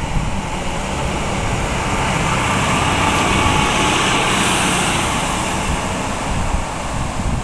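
Two-car diesel multiple unit passing close by. Its engine and wheel noise build to a peak about halfway through and then fade, with wind buffeting the microphone underneath.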